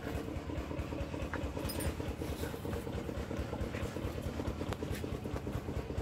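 An engine or motor running steadily with a rapid low throb.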